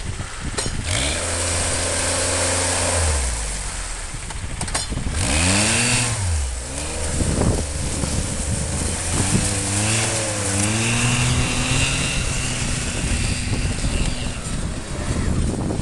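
Snowmobile engine running and being revved, its pitch rising and falling several times as the machine pulls away and climbs a snowy slope.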